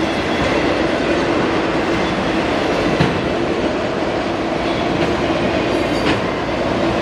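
Freight cars of a CSX freight train rolling past at close range: a continuous rumble of steel wheels on rail with a steady hum, and a couple of sharp clacks about three and six seconds in.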